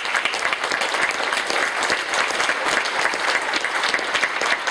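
Congregation applauding: many hands clapping in a dense, even patter.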